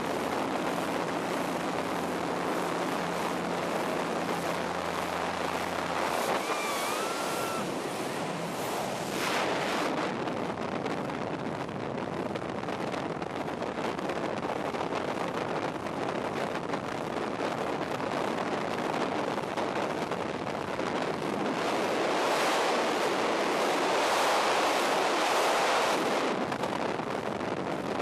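Rushing freefall wind buffeting the camera's microphone during a tandem skydive. A low drone from the jump plane's engine sits under the wind for about the first six seconds, then stops, leaving only the wind.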